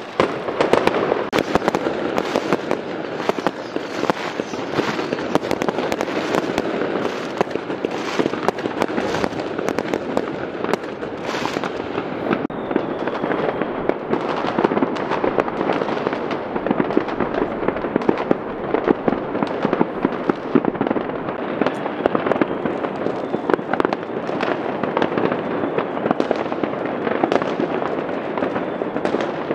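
Many fireworks and firecrackers going off at once: a dense, unbroken barrage of overlapping bangs and crackles at a steady level.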